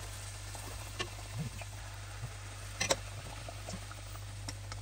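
Hot oil sizzling and crackling around handesh batter deep-frying in a pan, with a few sharper clicks, the loudest about three seconds in.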